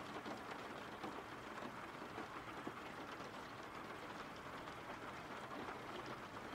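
Faint, steady rain: an even hiss with small scattered drop ticks, from a background rain-sounds track.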